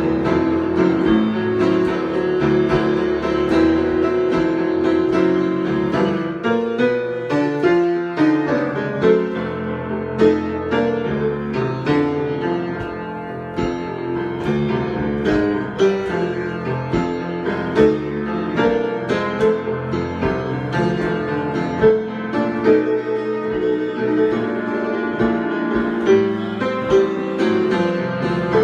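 Solo piano improvisation: a continuous flow of struck notes over sustained chords.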